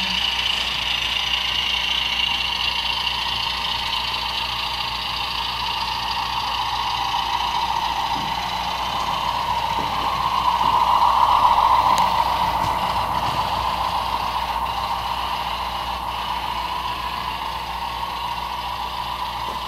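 HO-scale model train running along the layout's track, a steady whir that swells and is loudest about ten to twelve seconds in, then eases off.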